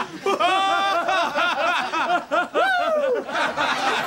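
Two men laughing loudly in quick ha-ha pulses, with a drawn-out laugh near the start and a long falling laugh about two and a half seconds in.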